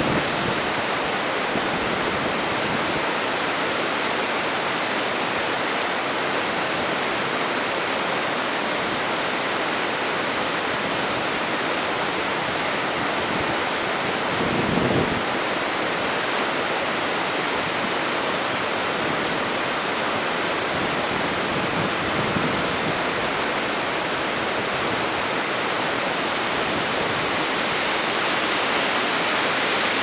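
Creek whitewater cascading steeply over bedrock ledges: a steady, even rush of falling water.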